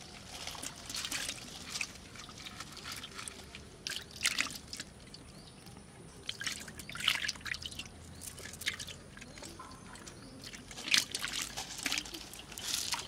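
Freshly caught fish flapping in shallow water in a metal pot, making irregular wet splashes and flicks with drips and trickles between them.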